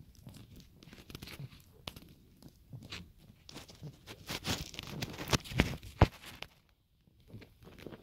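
Ferrets scrabbling and scuffling in the loose soil of a rabbit burrow: irregular scratching and crackling with a few sharp knocks, loudest a little past halfway, then a brief lull near the end.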